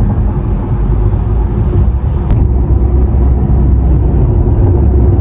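Steady low rumble of road and engine noise inside a car's cabin while driving on the highway, with one faint click about two seconds in.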